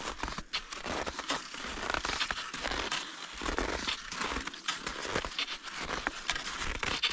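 Cross-country skis and poles crunching and scraping through ungroomed snow in uneven, plodding steps, with low thumps as each ski comes down.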